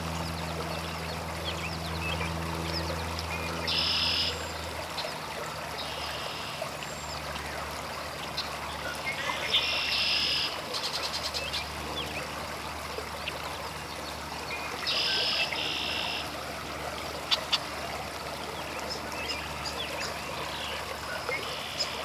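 Pond ambience: short, high, buzzy calls of about a second each, recurring every few seconds, over a steady low hum.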